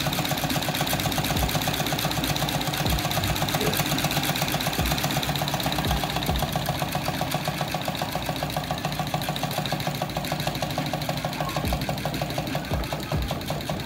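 Homemade tin-can Stirling engine running steadily on a camping sterno with a rapid, even mechanical clatter, driving a small belt-driven generator.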